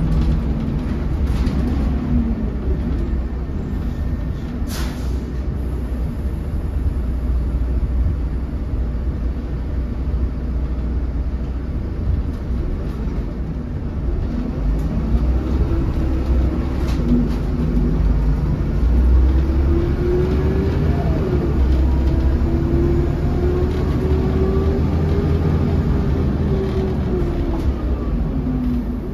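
A 2008 MAN 16.240 Designline bus's diesel engine heard from inside the moving bus, over steady road rumble. The engine note rises and falls as the bus pulls away and eases off, with a long climb in pitch in the second half that dips once and climbs again. There is a single sharp knock about five seconds in.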